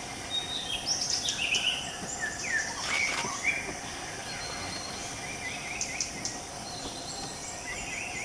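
Forest ambience: birds chirping and calling in short phrases, busiest about one to three seconds in and again near the end, over a steady high insect drone.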